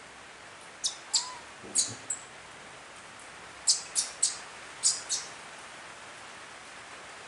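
Baby monkey giving short, high-pitched squeaks: a run of four, then after a pause a run of five, over a steady hiss.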